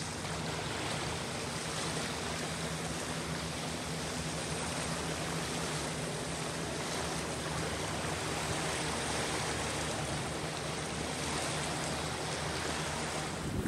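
Small wind-driven waves lapping and washing against a sandy river shore, a steady watery wash, with a faint low hum of a distant motorboat engine underneath.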